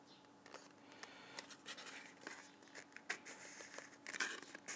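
Faint scratching, rustling and small clicks of foam and plastic model-aircraft parts being handled: the foam halves of an all-flying elevator being fitted onto a thin joiner rod. The rustling is busiest about four seconds in.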